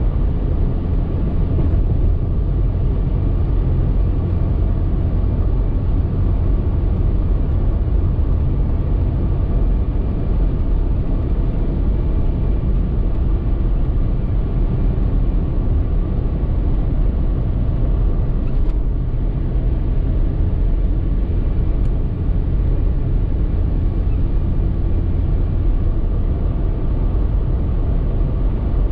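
Car driving, heard inside the cabin: a steady low rumble of engine and tyres on the road.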